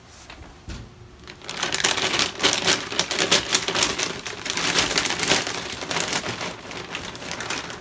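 Clear plastic vacuum storage bag crinkling and rustling as folded pillowcases are stuffed into it by hand, starting about a second and a half in and going on as a dense crackle.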